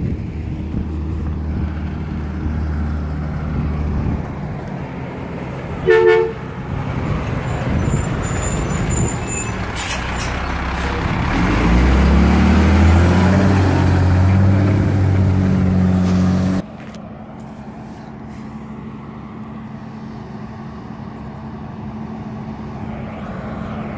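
Diesel refuse truck running close by, with a short horn toot about six seconds in; its engine then rises in pitch and gets louder as it pulls away past the camera. The loud engine sound cuts off suddenly after about sixteen seconds, leaving a fainter steady engine hum.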